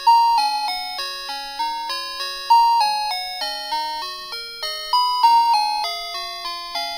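Background music: a simple electronic melody of short, clear notes in a steady, bouncy rhythm.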